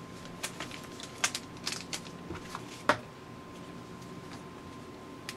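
Light clicks and taps of small electronic parts and tools being handled at a repair bench, about a dozen quick ticks over the first three seconds, the loudest near three seconds in, over a faint steady hum.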